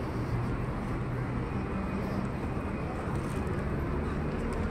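Outdoor city ambience: a steady hum of traffic with faint voices of people passing.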